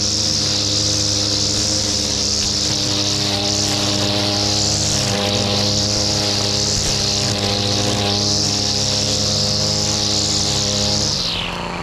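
Shindaiwa brushcutter engine running at full throttle, its nylon line head spinning through grass with a high whizzing hiss. Near the end the throttle is let off and the engine drops back toward idle.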